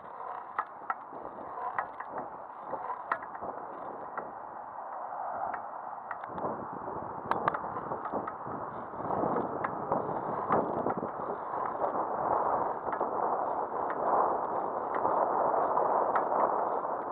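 Wind and road rush on a phone microphone while riding a bicycle over pavement, with scattered sharp clicks and rattles in the first half. The rushing grows louder about halfway through.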